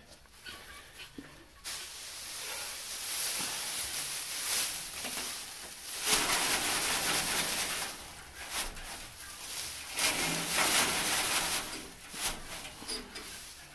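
Dry hay rustling and crackling as handfuls are pushed and stuffed into metal chicken nest boxes, in a few long bouts, loudest about six seconds in.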